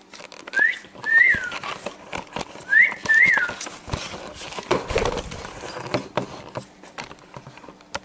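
A person whistling two short two-note calls, each note a quick rise and fall in pitch, in the first few seconds. Then knocks and rustling handling noise as the camera is carried.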